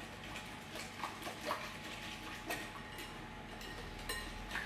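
Wire whisk beating egg yolks, milk and cornflour in a glass mixing bowl: irregular light clinks and scrapes of the whisk against the glass.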